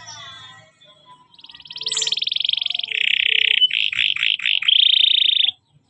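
Domestic canary singing: after a few faint chirps, a loud high-pitched, very fast trill, then a buzzy roll, a run of four or five quick downward-sweeping notes, and another fast trill that stops about half a second before the end.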